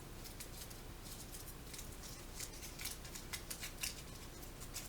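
A crinkly wrapper being handled: a string of short, irregular, crisp crackles.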